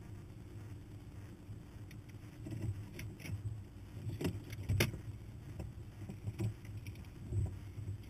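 Hummer's engine rumbling low as the truck crawls slowly over rocky desert ground. A few sharp clicks and rattles come between about three and five seconds in.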